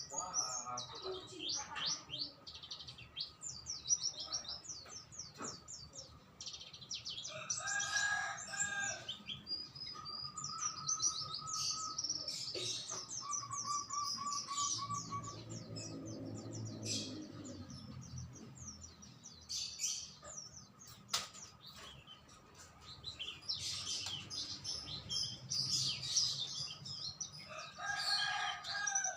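Several songbirds chirping and trilling rapidly and almost without pause, with a lower, fuller call twice, about eight seconds in and near the end.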